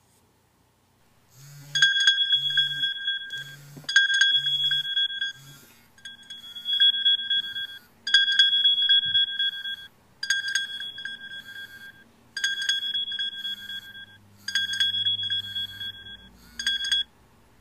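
iPhone 3G playing the Find My iPhone alert sound, a chime that repeats about every two seconds. Five short low buzzes sound under the first few chimes. The chime stops suddenly near the end.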